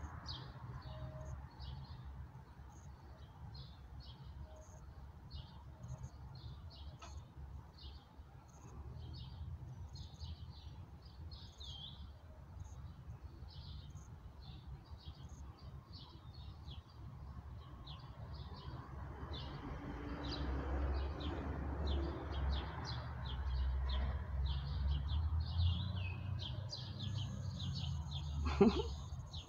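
Songbirds singing, many short high chirps in quick succession throughout, over a low rumble that grows louder in the second half.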